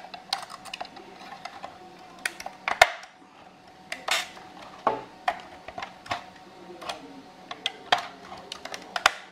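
Metal scraper blade prying and breaking out thin PLA support material inside a 3D-printed part: irregular clicks, scrapes and small snaps of plastic, the loudest snap about three seconds in.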